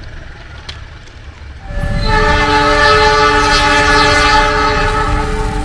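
Diesel locomotive's multi-tone air horn, sounding about two seconds in as a chord of several held notes that lasts to the end, with the approaching coal train's low rumble underneath. Before the horn there is only quieter background noise.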